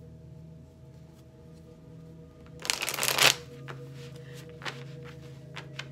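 A deck of tarot cards being shuffled by hand: one loud burst of card shuffling about two and a half seconds in, lasting under a second, then a few soft clicks of the cards.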